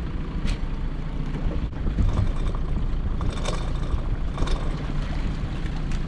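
Small fishing boat's engine running steadily, with wind and water noise, while a string of lobster pots is hauled in. A few brief knocks stand out, about half a second in and again around three and a half and four and a half seconds in.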